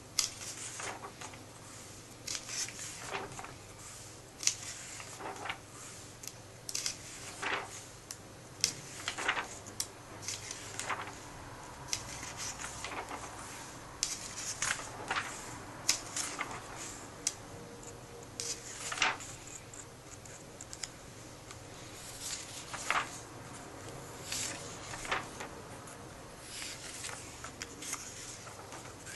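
Comic book pages being turned and smoothed flat by hand: irregular paper swishes and rustles, roughly one a second.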